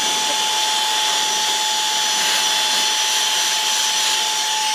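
Handheld cordless car vacuum cleaner running in blower mode, pushing out air. A steady rush of air with a constant high-pitched motor whine.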